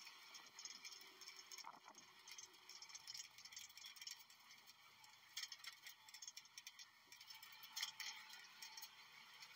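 Faint rattling and ticking from a golf-cart taxi in motion, with a few sharper clatters about halfway through and again near the end.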